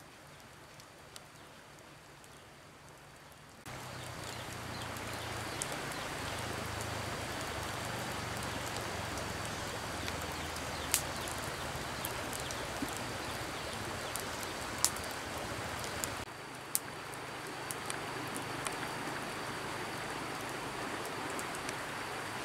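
Wood campfire burning: a steady hiss with sharp pops and crackles scattered through. It gets louder about four seconds in and drops back a little after about sixteen seconds.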